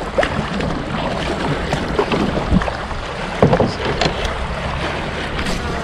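Kayak paddling: the double-bladed paddle dipping and splashing in lake water, with scattered short splashes and drips over a steady rushing background.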